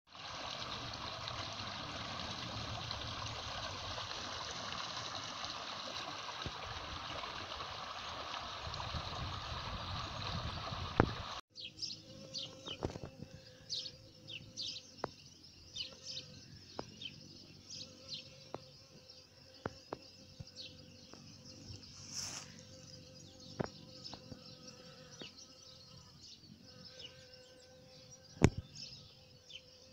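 Running water from a stream, a steady rush, for the first ten seconds or so. After a sudden cut it gives way to a quieter scene of small birds chirping, with a faint steady hum and a few sharp knocks, the loudest one near the end.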